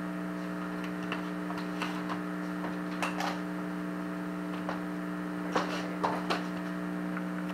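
Steady electrical hum from a ghost-box speaker, still going after the app is shut down, with scattered faint clicks and crackles; it cuts off suddenly near the end.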